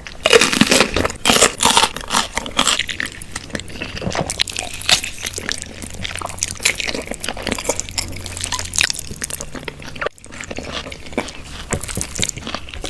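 Close-up crunching and chewing of crispy fried chicken, a dense run of irregular crackles and bites. There is a brief break about ten seconds in.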